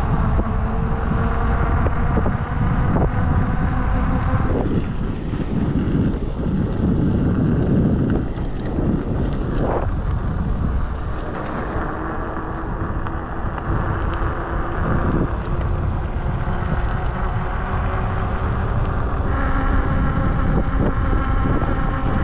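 Motorcycle engine running at road speed, with heavy wind noise on the microphone. The engine note holds steady and steps to a new pitch a few times as the speed changes.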